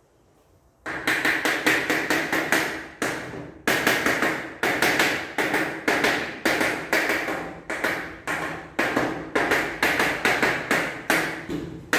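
Aluminium 'mão amiga' interlock profile on a glass door leaf being knocked repeatedly to press it tight against the glass and close the gap between leaves. It is a rapid run of sharp knocks, several a second, starting about a second in, each with a short ring.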